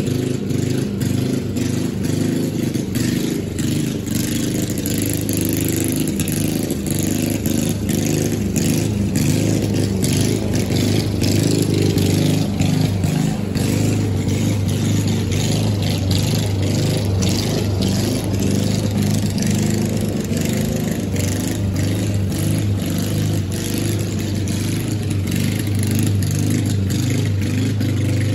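Small gasoline lawn mower engine running steadily, its pitch drifting slightly.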